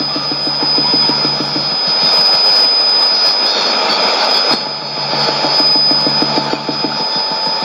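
Shortwave test transmission of odd sounds heard through a Sony ICF-2001D receiver. A low, rapidly pulsing buzz stops about two seconds in and returns about five seconds in, under steady hiss and static with a constant high-pitched whistle.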